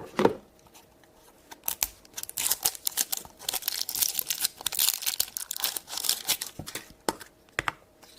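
A blind-bag toy wrapper being torn open and crinkled by hand, with dense crackling for several seconds, after a few handling clicks at the start.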